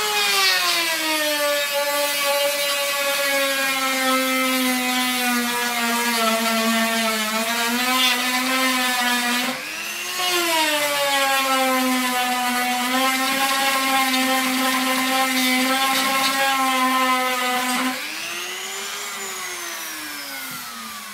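Parkside PFBS 160 B2 rotary multi-tool whining at high speed while working wood. Its pitch sinks and holds lower while the bit bears on the wood, and rises twice when it is lifted off. Near the end it runs free and then winds down.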